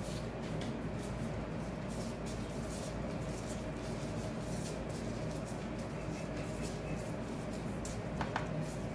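Steady low hum of background room noise, with faint scattered clicks and rustles from handling, and a brief squeak about eight seconds in.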